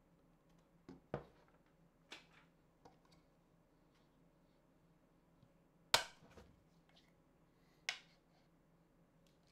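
Handling noise from a metal-bodied LED tube light on a tabletop: about seven separate sharp clicks and knocks, the loudest about six seconds in and another strong one near the end.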